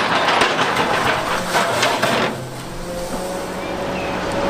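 Tracked excavator with a rock grapple working: engine running under load, with rough clattering and scraping of rock for the first two seconds, then a steadier rumble with a thin whine.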